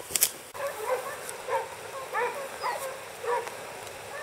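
A pack of hunting hounds barking and baying in quick repeated calls as they run wild boar. A few sharp clicks sound at the very start.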